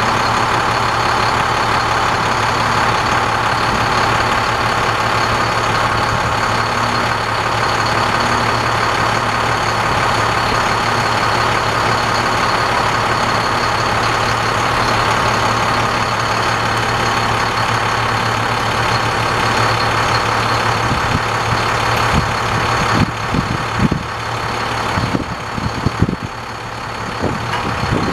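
International DT466 inline-six turbo diesel engine idling steadily. Over the last several seconds a few separate knocks and clunks are heard over the idle.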